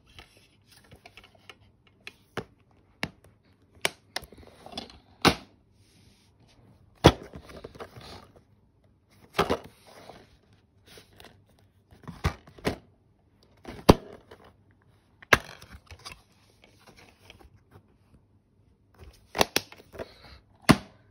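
Plastic DVD cases being handled: about a dozen sharp, irregular clicks as the cases are opened, shut and set down, with rustling and scraping of plastic between them.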